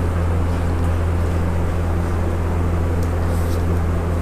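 Loud steady low electrical or fan-like hum, with a faint rustle of paper being handled about three seconds in.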